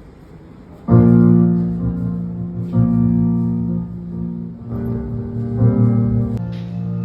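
Keyboard playing sustained chords. They start suddenly about a second in and change every second or two.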